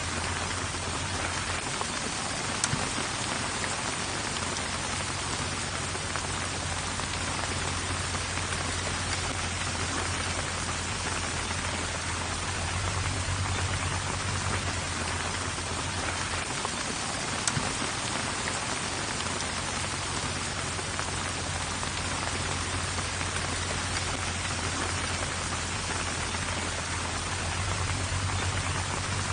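Steady rain, an even hiss, with a low steady hum underneath. Two sharp ticks, like heavier drops striking something hard, come a few seconds in and again just past halfway.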